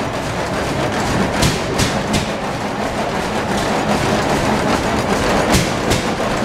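Large old stationary engines running in an engine barn: a loud, steady mechanical clatter with a few sharp clicks.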